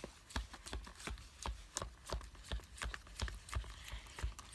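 A utensil stirring a thick glue-and-cornstarch slime mixture in a container, making irregular light clicks and knocks, several a second.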